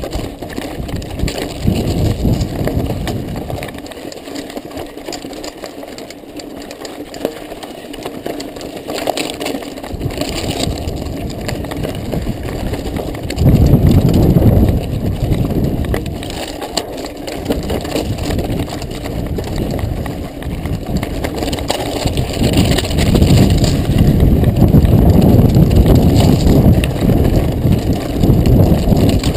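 Mountain bike riding over loose volcanic rock and gravel, heard from a handlebar camera: tyres crunching and the bike rattling, with a low rumble that swells about halfway through and again toward the end.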